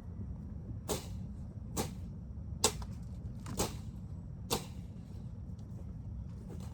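Hand tool chopping down bush: five sharp cutting strokes about a second apart.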